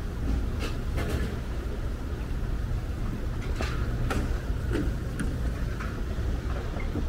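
Outdoor street ambience: a steady low rumble, with a few light clicks and knocks scattered through it.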